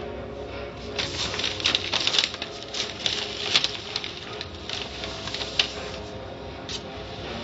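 Automatic car wash tunnel: irregular tapping and pattering against the car body, heard from inside the car, over a steady low hum of the wash machinery. The tapping is busiest in the first half and thins out near the end.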